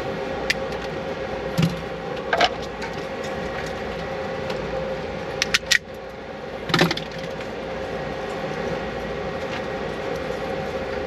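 Small clicks and rustles of wires being handled and pressed into a connector while the system negative wire is hooked up, over a steady machine hum with a constant mid-pitched tone.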